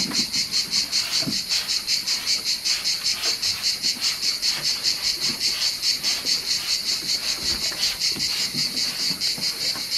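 Insects chirping in a fast, even pulse of several chirps a second, high-pitched and steady.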